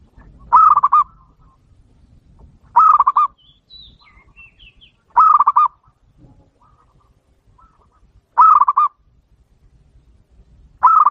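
Zebra dove (perkutut) cooing song: short, rapid trilled coos repeated about every two and a half seconds, five phrases in all. A few faint high chirps from another small bird come between the second and third phrases.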